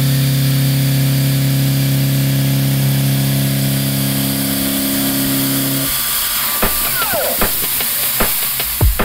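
Kennametal HARVI I TE end mill milling 316 stainless steel: a steady pitched hum with a hiss over it. About six seconds in the cut ends and the hum stops, leaving scattered clicks and a brief falling whine.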